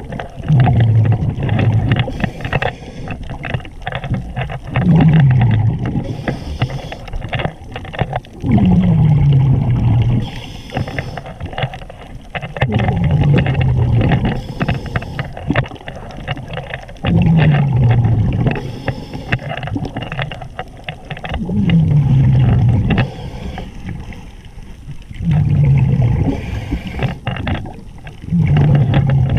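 Scuba diver breathing through a regulator, heard underwater: a low burst of exhaled bubbles, falling in pitch, about every four seconds, with a faint hiss of each inhale between.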